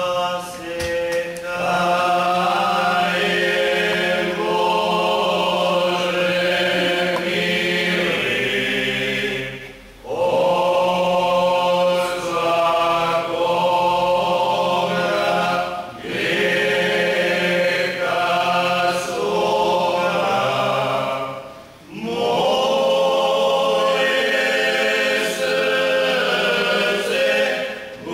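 Male vocal group singing a Lenten church hymn a cappella, several voices together in long held phrases, with short breaks between phrases roughly every six seconds.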